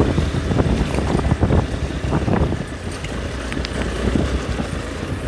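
Motorcycle running with a steady low hum, with irregular clattering knocks and rattles over it.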